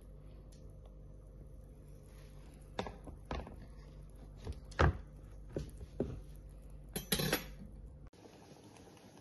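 Several short knocks and clunks of a plastic cutting board and cookware being handled, the loudest about halfway through and a quick cluster a couple of seconds later, over a steady low hum that cuts off shortly before the end.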